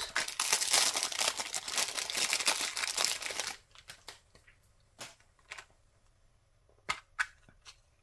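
Plastic wrap crinkling as it is pulled off a small clear plastic box of paper clips, for about three and a half seconds. Then a few light clicks from the plastic box being handled and its lid opened.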